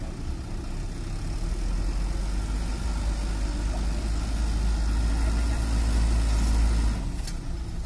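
Laden Mitsubishi Fuso Canter truck's diesel engine pulling through deep mud, growing louder and then dropping off sharply about seven seconds in, followed by a brief click.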